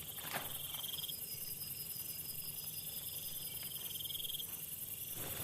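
Forest insect chorus of crickets and other insects: a steady high-pitched buzzing, with one trilling call that sounds twice and a thin steady whine in the middle.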